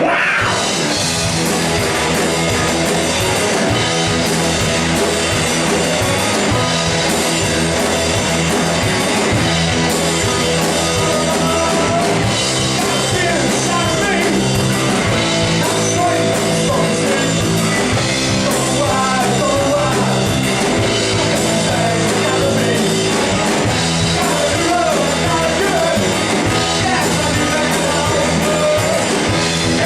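Live punk rock band playing loudly, with electric guitar and a singer's voice over the band.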